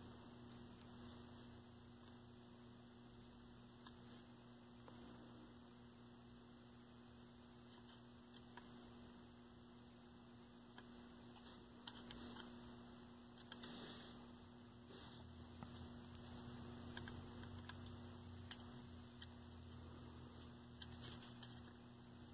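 Near silence: a steady low electrical hum, with a few faint ticks.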